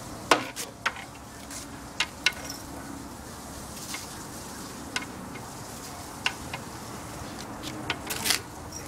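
A dog going after a grasshopper, making irregular sharp clicks and taps, about a dozen of them spread apart, loudest near the start and again near the end.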